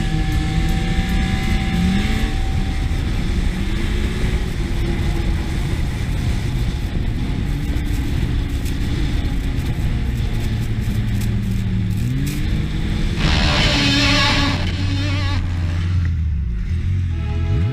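Yamaha SR Viper snowmobile's four-stroke three-cylinder engine running under way, its pitch rising and falling as the throttle is worked, under steady low rumble. A loud hiss lasts about a second and a half, starting about thirteen seconds in.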